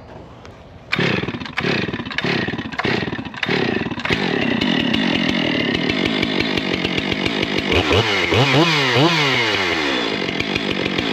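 Two-stroke chainsaw starting up: a few short revs that each drop away, then the saw running at high speed. Near the end the throttle is revved up and down several times.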